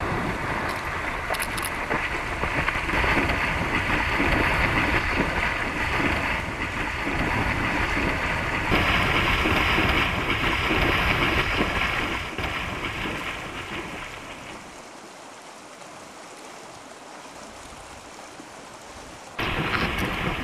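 Brown bear running and splashing through shallow water chasing salmon: a continuous rush of churned water. It fades quieter about two-thirds of the way through, then comes back abruptly near the end.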